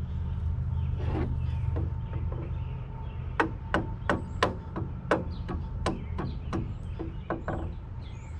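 Wood chisel being worked into wood, giving a run of sharp short knocks about twice a second that starts a few seconds in. A low steady rumble runs under the first part.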